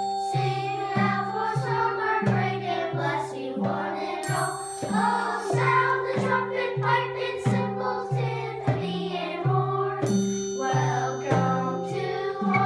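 A group of young children singing a welcome song in unison over an accompaniment with a steady low bass line of about two notes a second. A bright high ringing note sounds twice, about four and ten seconds in.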